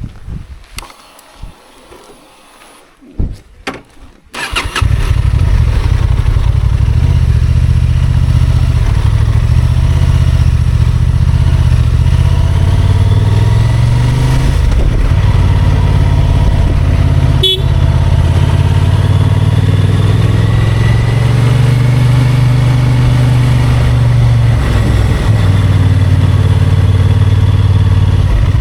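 Honda XL750 Transalp's parallel-twin engine starts suddenly about four seconds in, after a few knocks, then runs steadily at low revs with small wavers in pitch.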